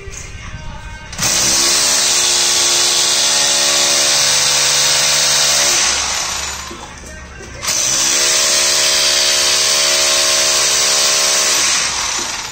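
Electric drill running twice, each time for about four to five seconds, its motor whining up to speed at each start and winding down at each stop.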